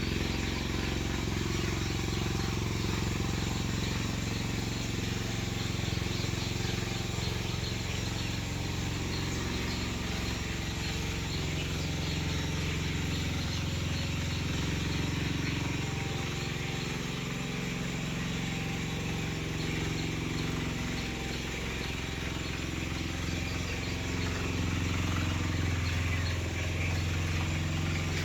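Steady low engine hum over outdoor ambience, swelling slightly near the end.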